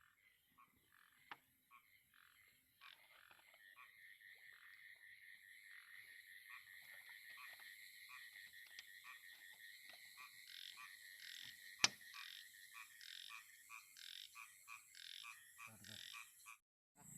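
Frogs calling: a faint chorus of short, repeated croaks that thickens and grows louder after a few seconds, with one sharp click about twelve seconds in. It cuts off suddenly just before the end.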